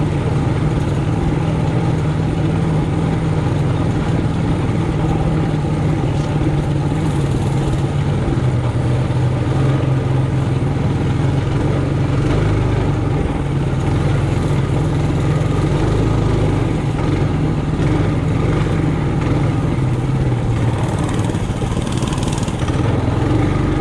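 Trailmaster Hurricane 200X mini bike's four-stroke engine running steadily while riding, its note shifting slightly up and down with the throttle.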